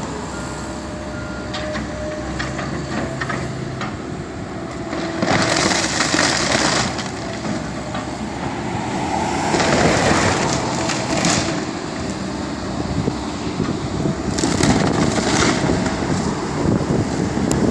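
Excavator demolition work: the machine's engine running steadily, with several bursts of crushing and cracking debris a few seconds apart and scattered knocks.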